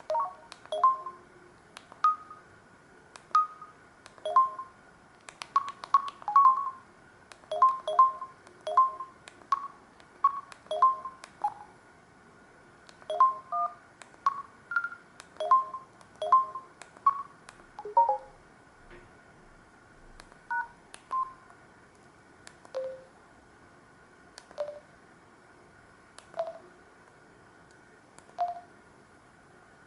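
A Samsung SGH-D780 mobile phone ringtone: a tune of short, beep-like synthesized notes, each starting with a click. The notes come quickly at first, then thin out to single notes about two seconds apart in the last third.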